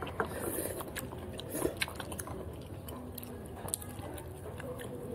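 A person chewing food, with scattered light clicks of utensils.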